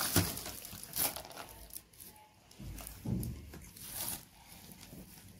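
Plastic packaging and bubble wrap crinkling and rustling in short bursts as plastic tumblers are unwrapped and handled, with a soft low thump about three seconds in.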